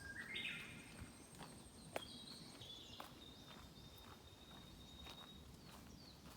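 Faint songbird song with footsteps on a forest path. A short rising bird phrase comes in the first second, then thin held high whistles, while steps click about once a second.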